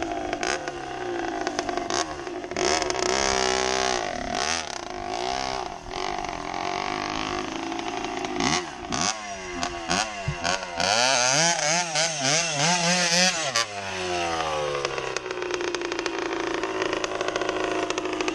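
Small 80cc two-stroke dirt bike being ridden hard, its engine revving up and down over and over as the throttle and clutch are worked, with some clatter. The pitch swings fastest in the middle stretch, then it settles into a lower, steadier note near the end.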